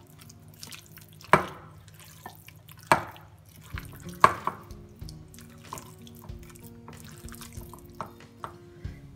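A hand squelching and kneading raw chicken pieces in a wet egg and cornflour marinade in a glass bowl, with three sharper wet slaps about a second and a half apart in the first half, then softer squishing.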